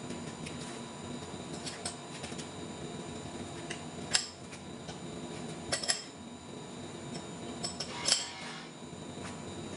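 A few sharp metal clinks and clanks of a hand wrench working the steel clamp bolts on a lathe faceplate, the loudest about four and eight seconds in, over a steady low machine-shop hum.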